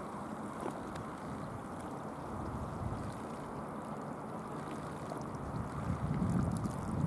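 Steady low rush of wind and sea water, swelling louder over the last second.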